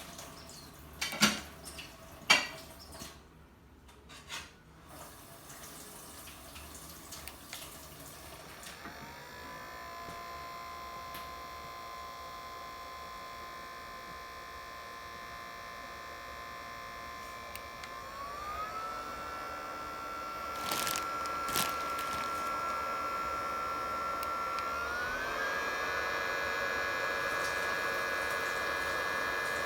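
BioLite CampStove 2's built-in fan spinning up and running with a steady whine over a rushing hiss, stepping up in pitch twice as it goes to higher speeds. A couple of sharp clicks come before the fan starts and two more come midway.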